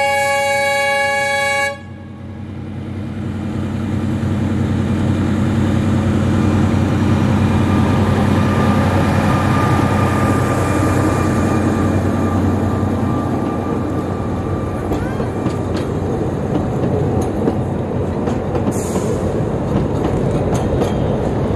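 Lyd2 narrow-gauge diesel locomotive's horn sounds a steady blast that cuts off suddenly under two seconds in; the locomotive's diesel engine then passes close by, growing louder, followed by a string of open wooden carriages rolling past with wheel clicks on the rail joints.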